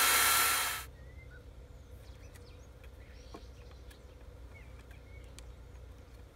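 A power drill boring a pilot hole into a wooden log runs at speed and stops under a second in. After that only faint short bird chirps and a few small clicks are left.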